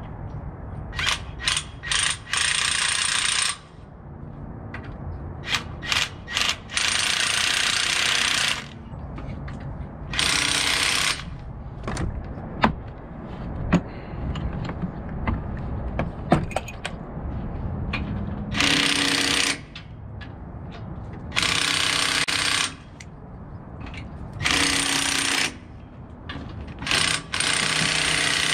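Impact wrench run in about eight short bursts of one to two seconds each, loosening bolts while the concrete pump's wear parts are taken apart. Sharp metal clicks and clanks of tools and parts fall between the bursts.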